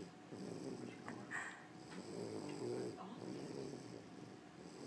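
A sleeping woman snoring, slow snores a couple of seconds apart, the longest about two seconds in.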